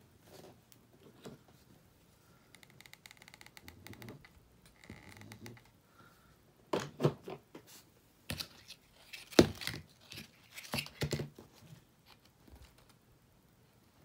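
Hands handling satin ribbon and its spool on a cutting mat: faint rustles at first, then a cluster of louder rustles and light knocks about seven to eleven seconds in, with one sharp knock about nine seconds in.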